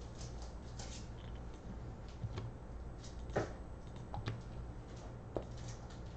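A few sharp clicks, roughly one a second and the loudest about three and a half seconds in, over a faint steady low hum.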